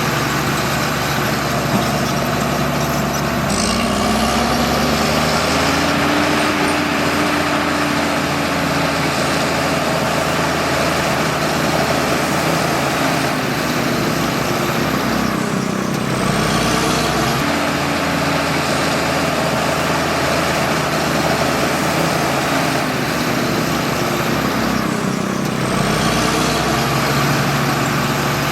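Bulldozer's diesel engine running hard while it pushes soil, its pitch and load changing three times: a few seconds in, about halfway through and near the end.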